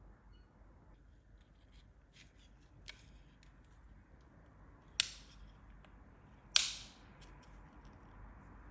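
Two sharp clicks about a second and a half apart, the second the loudest, with a fainter tick before them, over quiet room tone.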